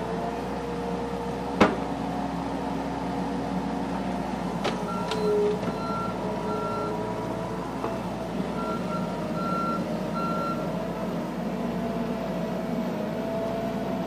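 Bobcat 735 skid-steer loader running steadily as it works, its back-up alarm beeping in two short stretches as it reverses. A single sharp knock about one and a half seconds in is the loudest sound.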